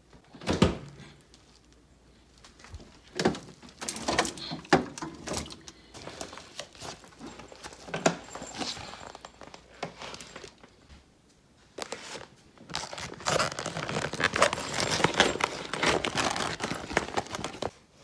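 Irregular rustling and crinkling handling sounds with scattered sharp knocks: a single knock about half a second in, then two long stretches of rustling broken by a quiet gap around the middle.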